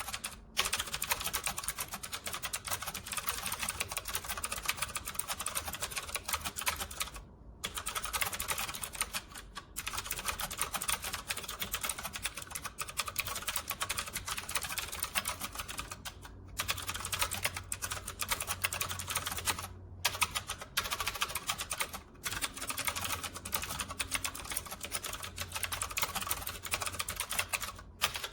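Fast typing on a Camiysn typewriter-style mechanical keyboard: a dense, continuous stream of key clicks, broken a few times by short gaps.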